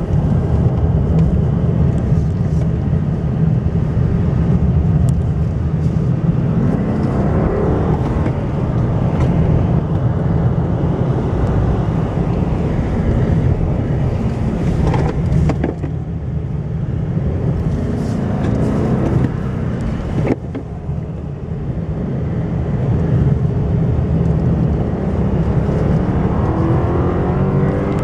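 BMW 750i's V8 engine and tyres heard from inside the cabin as the car is driven hard, the engine note rising several times under acceleration and dipping suddenly about two-thirds through.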